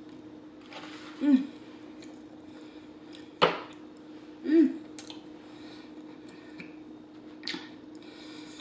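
A woman eating fries, with mouth and chewing sounds and a few short closed-mouth 'mm' hums that fall in pitch. There is one sharp click in the middle. A steady low hum runs underneath.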